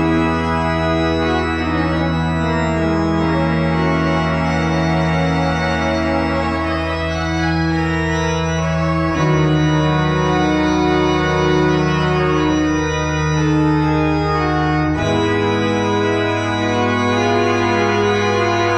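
Church organ playing the closing postlude: full sustained chords over held bass notes, the harmony shifting about halfway through and again near the end.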